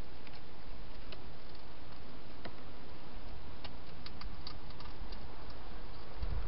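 Wild hedgehog eating from a bowl: sparse, irregular small clicks of chewing, over a steady hiss.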